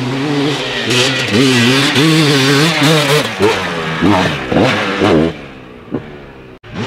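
Dirt bike engine under hard throttle climbing a steep dirt hill, its pitch wavering, then a run of sharp rev rises and falls about three to five seconds in before the engine drops away quieter.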